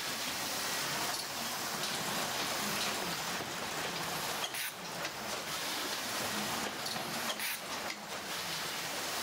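Steady rushing machine noise of a box-labelling line running, a plastic slat conveyor and a print-and-apply label applicator, with a faint low hum underneath. The noise dips briefly about halfway through and again near the end.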